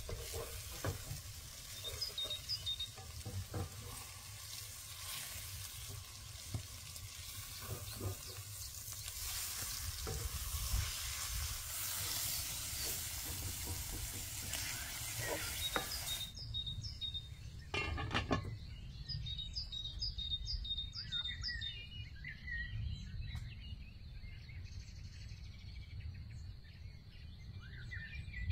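Food sizzling in a hot frying pan, with occasional knocks of stirring. About halfway through the sizzle cuts off abruptly, leaving birds chirping over a low outdoor rumble.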